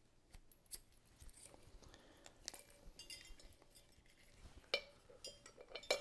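Light metallic clinks and clicks as a ceiling fan's metal down rod is handled, fed over the safety cable and fitted to the motor housing's threaded collar, with sharper clicks near the end.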